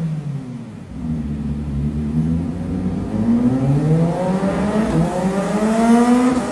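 CFMOTO 500SR S motorcycle engine running through its exhaust. It runs low and even at first, then is revved, its pitch climbing steadily for about three seconds before falling back near the end.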